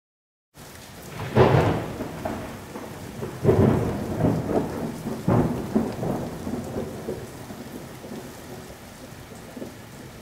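Thunderstorm: steady rain with three rolls of thunder, starting after a brief silence, the loudest about a second and a half in and the others roughly two and four seconds later, then rain alone.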